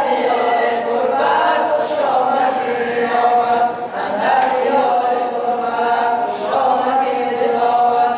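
A group of boys and young men singing together without instruments, in phrases of about two seconds with long held notes.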